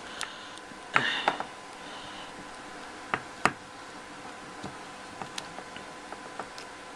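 Hard plastic clicking and tapping as a large accessory is worked onto a toy action figure's hand. The clicks are scattered, with two sharper ones close together about three seconds in.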